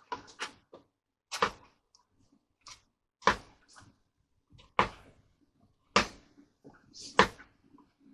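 Short, sharp knocks and rubs, roughly one a second and some in quick pairs, from a covering iron being worked over Solartex on a balsa model tailplane.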